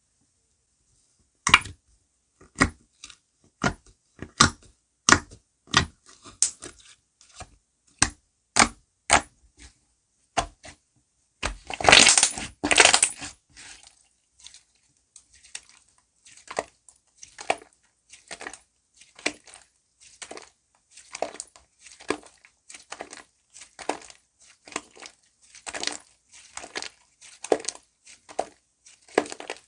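Slime being pressed and squeezed by hand, making sharp crunchy clicks roughly every half second. There is a louder burst of dense crackling about twelve seconds in, and the clicks that follow are quieter and quicker.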